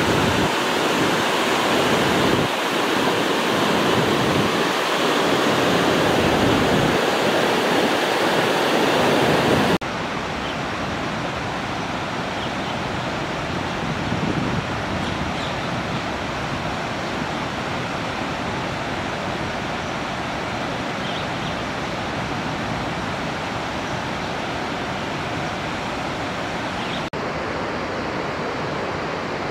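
Steady rush of flowing water, with no pitched sound in it. About a third of the way in it drops abruptly in level and loses its highest hiss, and there is a brief break near the end.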